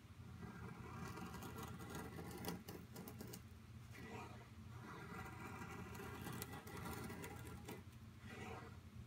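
KA-BAR Becker BK2 knife blade shaving thin curls down a wooden stick to make a feather stick: faint, repeated scraping strokes with short pauses between them.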